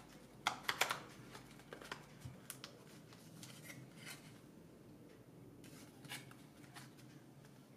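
Faint plastic clicks and rubbing as a Neewer NW-561 speedlite flash is handled and turned over in the hands, with a small cluster of sharper clicks about half a second in.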